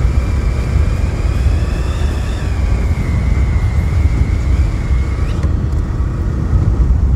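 TVS Raider 125's single-cylinder engine running at a steady cruise, under heavy wind rush on the handlebar-mounted microphone. A thin high whine wavers over it and stops about five seconds in.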